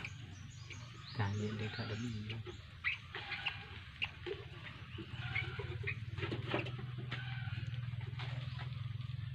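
Downy hawk chick giving short, high begging calls while being hand-fed scraps of meat, over a steady low hum.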